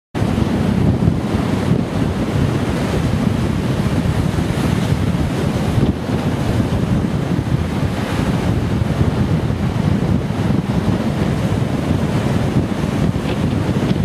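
Rough, stormy sea surf breaking and washing up a sandy beach in a steady rush, with strong wind buffeting the microphone.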